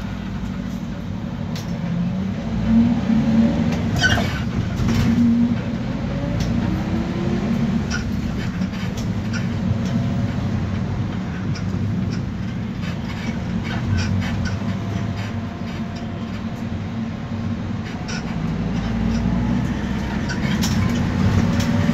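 Inside an Iveco Daily diesel minibus on the move: steady engine and road rumble with repeated short squeaks and clicks from the underbody parts, squeaking with wear.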